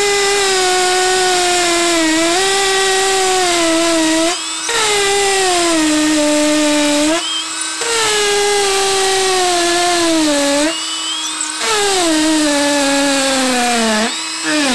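Makita XPH07 brushless hammer drill in hammer mode boring into a concrete block, running in four stretches with brief pauses, its pitch sagging under load in each. It stops near the end as the bit breaks through. A blower's steady hum runs underneath.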